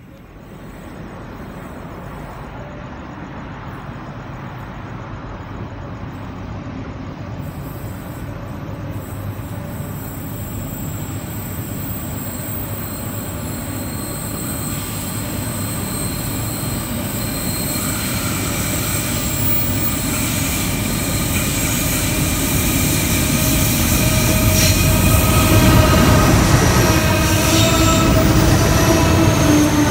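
Freight train hauled by NR class and 93 class diesel-electric locomotives approaching and passing: a steady engine drone that grows louder throughout, loudest as the lead locomotive goes by near the end.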